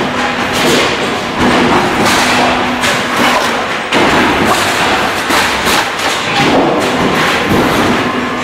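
Sheet metal shearing machine at work: a busy run of clanks and thuds of the blade and cut sheet metal, with a sharp knock about four seconds in, over a hum that comes and goes.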